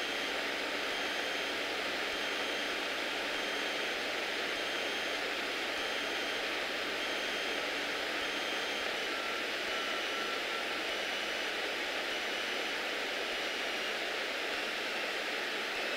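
Cabin noise of a Beechcraft Bonanza F33A in a powered climb: its six-cylinder Continental piston engine and propeller make an even, steady rushing drone that does not change in level.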